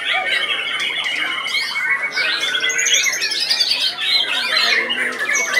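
Several caged white-rumped shamas singing at once: a dense, unbroken tangle of loud whistles, trills and harsh chattering phrases overlapping one another.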